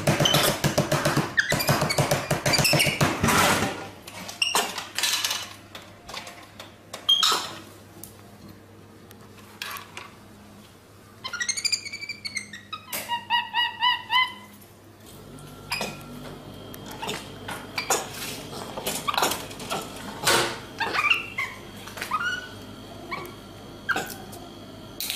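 A capuchin monkey rapidly slapping the plastic buttons of a drinks vending machine makes a loud clattering for the first few seconds. About halfway through come a few high squeaks that rise and fall, and then scattered light taps and clicks.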